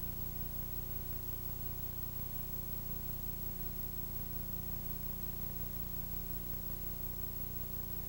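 Steady hiss with a low electrical hum and no other sound: the background noise of a multi-generation VHS copy.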